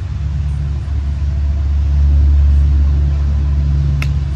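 Steady low rumble of a passing motor vehicle, swelling in the middle. Near the end, one sharp crack of a bat hitting a tossed baseball.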